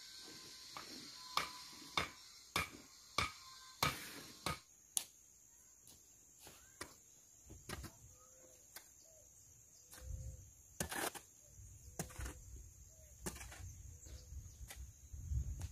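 A series of sharp knocks: six in quick succession, about one every half second, then scattered weaker ones over a low rumble that starts about two-thirds of the way in.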